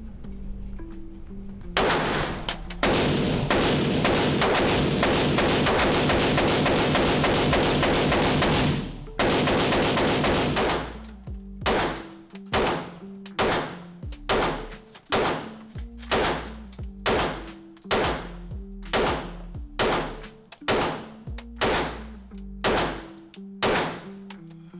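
Handgun shots fired at a range: a fast, crowded string of shots, then steady single shots at about one and a half per second, each with a short ringing tail. Background music plays underneath.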